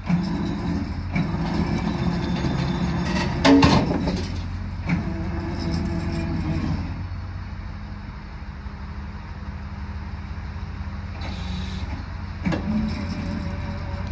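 Truck engine running steadily while a winch drags a seized tracked machine up onto the truck, its stiff track chains clanking and creaking under tension. The loudest clank, with a brief metal squeal, comes about three and a half seconds in, and another knock near the end.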